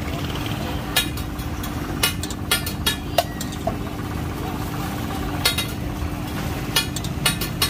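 Metal cooking utensils clinking sharply against a flat metal griddle, about eight irregular strikes, over a steady low rumble of street traffic with a constant hum.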